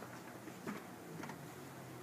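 A child's footsteps on a hard tiled floor: two light steps over a low steady room hum.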